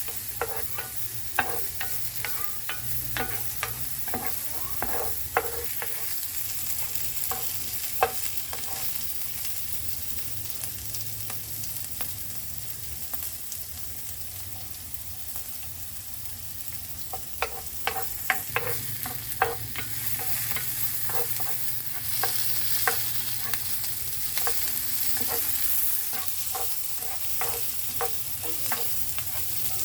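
Food frying in oil in a pan, a steady sizzle, while a utensil stirs it, clicking and scraping against the pan in repeated bouts.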